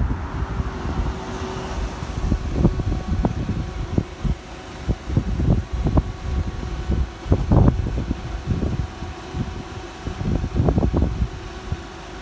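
Wind buffeting the microphone in irregular low gusts and thumps, with faint steady tones underneath.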